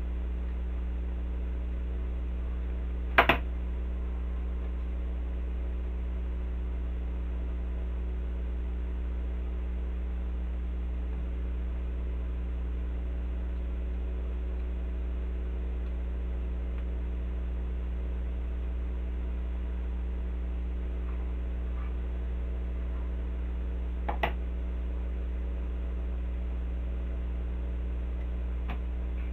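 Steady low electrical hum, unchanging throughout, with two brief sharp clicks, one about three seconds in and one about twenty-four seconds in.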